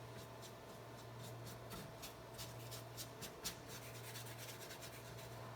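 A brush spreading ABS juice across a 3D printer's build plate: faint, quick scratchy strokes that come thicker after about two seconds, over a steady low hum.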